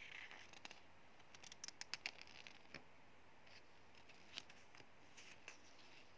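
Near silence with faint scattered ticks and soft rustles from a paper instruction booklet being handled, with small clusters about a second and a half in and again around four and five seconds.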